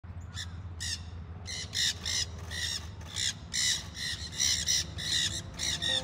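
A flock of black-hooded (nanday) parakeets screeching: short, harsh calls about three times a second.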